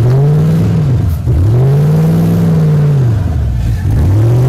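Rock crawler's engine revving hard under load as it climbs a rock ledge, in about three long surges, each rising and then falling in pitch.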